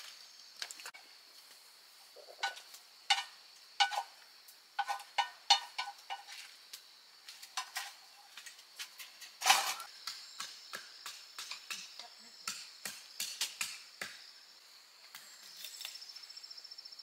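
Wooden chopsticks scraping and tapping against a metal frying pan in a string of sharp clicks and scrapes, with one louder knock about halfway through, as cooked food is scraped out into a bowl. Insects chirp steadily in the background, with a fast trill near the end.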